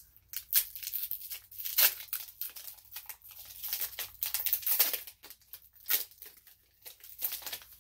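Foil wrapper of a Pokémon card booster pack being torn open and crinkled by hand: a series of irregular rips and crackles.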